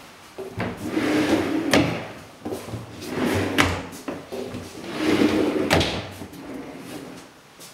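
Wooden closet doors being opened by hand: three rubbing, sliding strokes of about a second each, each ending in a sharp click.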